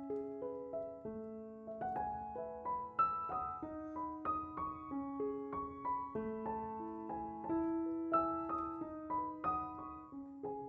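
Background piano music: a slow melody of struck notes over held lower notes.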